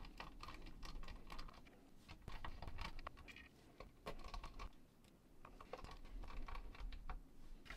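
Small screwdriver driving the casing screws back into the plastic case of a Sanyo MGR61 personal cassette player: faint clicking and scratching in short bursts, with pauses between screws.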